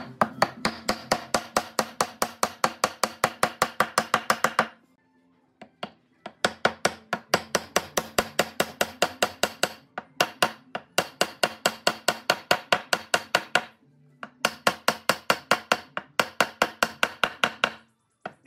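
Wooden mallet rapidly knocking round wooden dowels down into drilled holes in a pine beam: quick sharp strikes about five a second, in four runs with short pauses between them.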